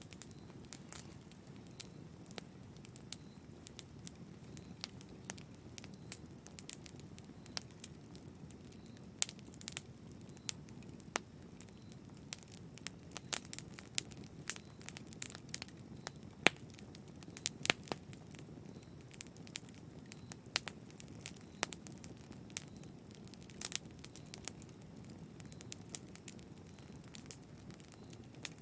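Wood fire in a fireplace crackling, with a steady low rumble of flames under frequent irregular sharp pops and snaps, a few of them louder.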